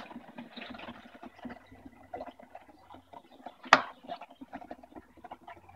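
CO2 forced back through the clogged liquid tube of a stainless homebrew keg, gurgling and bubbling up through the beer as it blows out the packed hop sediment. The bubbling is strongest in the first three seconds and gets fainter after a sharp click about two-thirds of the way through.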